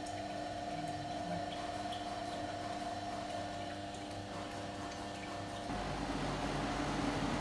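Frozen drink (slush) machine running with a steady, even hum; near the end the sound changes abruptly to a louder, noisier hum.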